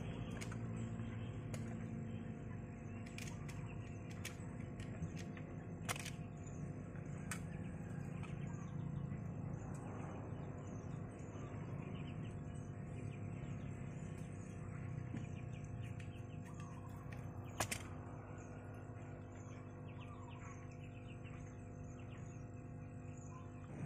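Outdoor ambience: a steady low hum with birds chirping faintly, broken by a few sharp clicks, the clearest about six seconds in and again near eighteen seconds.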